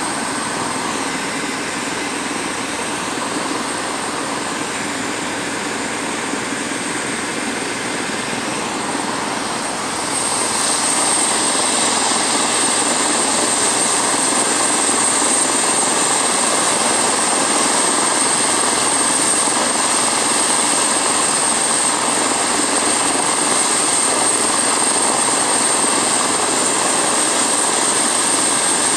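MBB-BK117C2 (EC145) helicopter's twin turboshaft engines and rotor running steadily on the ground: a continuous rush with a high turbine whine. About ten seconds in it grows louder and the whine strengthens.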